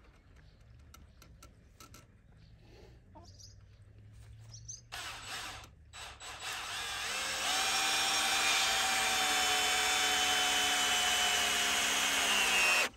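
Cordless drill running into a wooden frame post: a short burst about five seconds in, then a long steady run of about six seconds that sags slightly in pitch near the end and cuts off abruptly.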